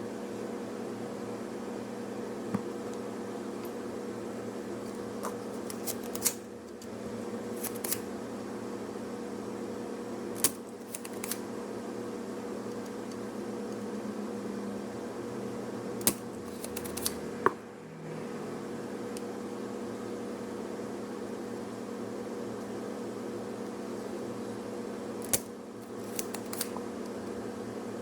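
Steady electrical hum of running bench repair equipment, with a scattering of sharp small clicks from hand tools working on the jump starter's charging port.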